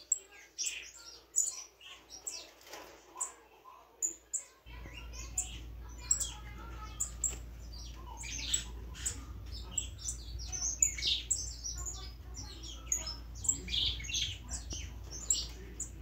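Saffron finches, an adult and its fledgling in a cage, chirping: many short, high chirps in quick, irregular succession. A steady low hum comes in about five seconds in.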